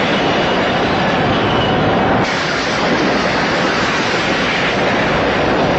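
Loud, steady rushing roar of a large ritual fire, a dense, even noise with no distinct crackles, changing slightly a little over two seconds in.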